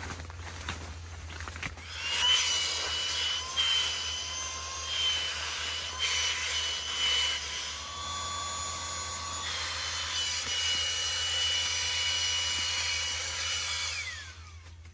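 A small electric motor starts about two seconds in and runs steadily with a whine for about twelve seconds. Its pitch shifts a few times along the way, and just before the end it winds down with a falling pitch.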